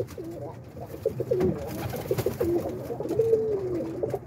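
Birmingham Roller pigeons cooing: a run of low, wavering coos, with a longer drawn-out coo about three seconds in.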